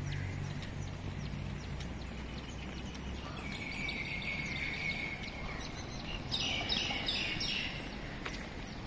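Birds calling outdoors: a run of chirps about three and a half seconds in, then a louder call repeated several times a little past the middle, over a steady low hum that fades out about three seconds in.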